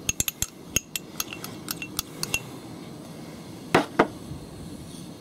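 A metal spoon tapping and scraping spice out of a small ceramic ramekin over a stainless steel saucepan: a quick run of light clinks for the first two and a half seconds, then two louder knocks close together a little before four seconds in.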